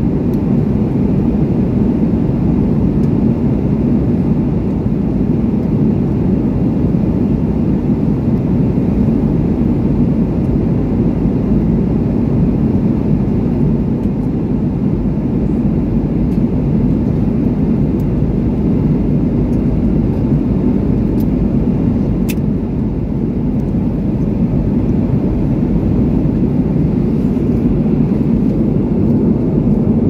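Steady cabin noise of a jet airliner in flight, the low rush of engines and airflow heard from inside the passenger cabin.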